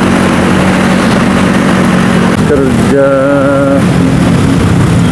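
Motor scooter engine running steadily while riding through traffic, with heavy wind and road rush on the microphone. About three seconds in, a short pitched tone sounds for under a second.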